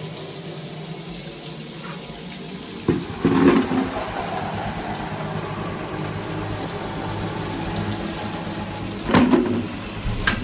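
Water running steadily from a tap, with two louder splashing bursts, one about three seconds in and one near the end.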